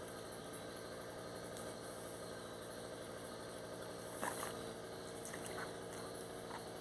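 A small engine idling steadily, with a brief clatter about four seconds in.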